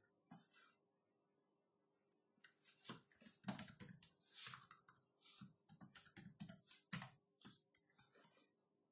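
Computer keyboard typing: scattered, irregular keystrokes that begin about two and a half seconds in and run until near the end, over a faint steady hum.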